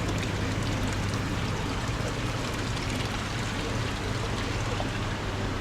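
Steady rush of running water with a low, constant hum, the sound of aquarium tank filtration and pumps.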